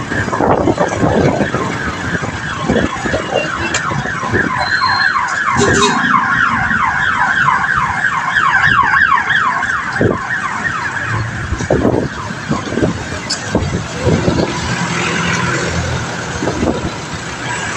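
Street traffic heard from a moving bicycle, with wind buffeting on the microphone. For several seconds in the middle, a fast, repeating electronic warble sounds over the traffic.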